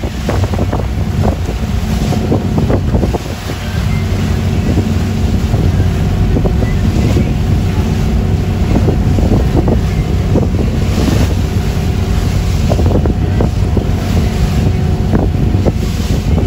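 Lobster boat engine running steadily at sea, with wind buffeting the microphone and water rushing and splashing along the hull.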